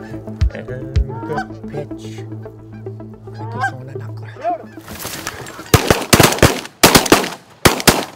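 Geese honking over background music with a steady beat, then a rapid volley of shotgun blasts from several guns, starting about three-quarters of the way in.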